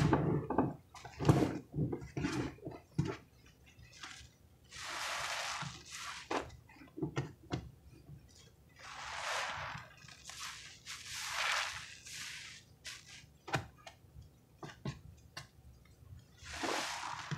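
Soaked sponges squeezed by hand in thick cleaner suds: a run of squelching squishes, then several longer hissing rushes as foamy liquid is wrung out of them.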